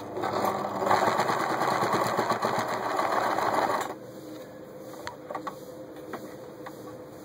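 Janome Super Automatic 348 electric sewing machine stitching fast through folded fabric, getting louder about a second in and stopping after about four seconds. A few light clicks follow.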